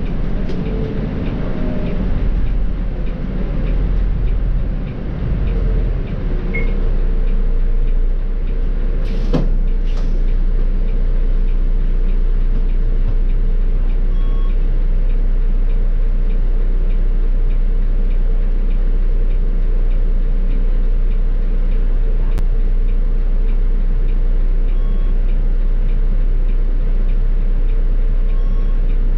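Volvo B7R bus's inline-six diesel engine and drivetrain heard from inside the bus, a steady hum with a constant whine. The sound shifts and dips over the first several seconds, then runs evenly. Two short sharp noises come about nine and ten seconds in.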